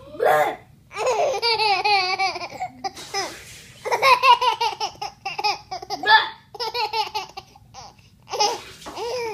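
A ten-month-old baby laughing in a string of high-pitched bursts of giggles and squeals, with short pauses between them.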